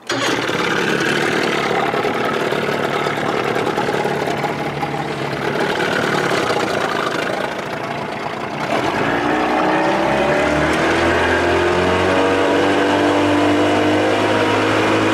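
1993 Evinrude 30 hp two-stroke outboard running with the boat under way, over wind and water noise. About nine seconds in, the engine note climbs as the motor speeds up, then holds steady at higher revs.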